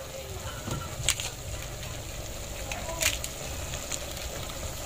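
Chicken pieces with garlic, ginger and onion sautéing in an aluminium pot: a steady low sizzle, with two sharp clicks about a second in and about three seconds in as ingredients are handled in the pot.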